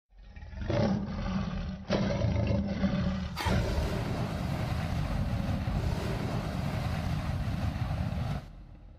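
Monster roar sound effects: two growling roars over the first three seconds, then a longer, harsher, noisier roar of about five seconds that drops off near the end and fades.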